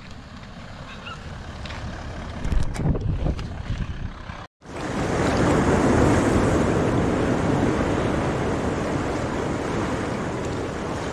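A four-wheel-drive approaching on a dirt track, its engine and tyres growing louder with a few bumps. After a sudden cut, a steady rush of surf and wind, loud at first and slowly easing.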